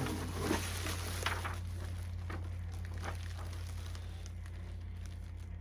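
Packing material being handled: a few short rustles and crinkles in the first three seconds, then softer handling, over a steady low hum.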